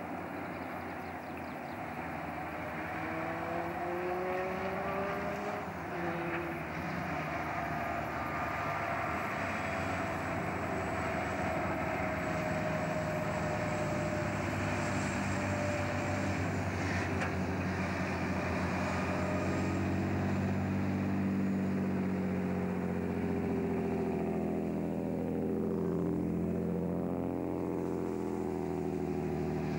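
Diesel engines of several loaded logging trucks running in convoy. Their pitch climbs in the first few seconds, then holds steady, and they get louder as the trucks draw near.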